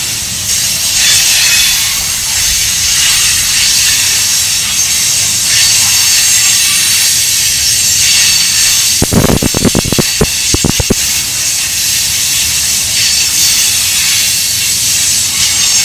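Freight train tank cars rolling past, their steel wheels on the rail making a steady high hiss. About nine seconds in, a quick run of about eight sharp clacks comes as a pair of trucks rolls over a rail joint.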